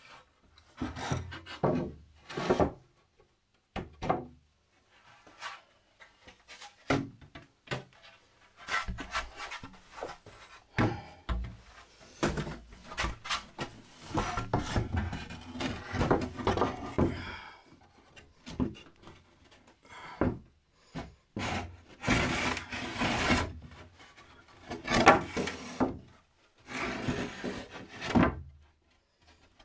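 Timber shelf boards scraping, rubbing and knocking against a wooden shelf frame as they are slid into place by hand, in irregular bursts with a few sharper knocks.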